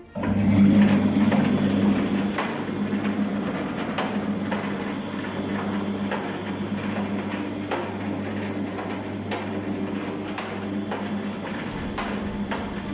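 Concrete mixer motor switched on, starting abruptly and running with a steady hum, loudest in the first couple of seconds, with many light irregular clicks and knocks over it as the mixer turns.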